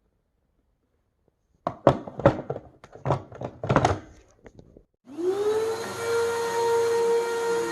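Several knocks and thumps, then about five seconds in a vacuum cleaner is switched on: its motor spins up quickly to a steady high whine over a rush of air, ready for pre-vacuuming the carpet.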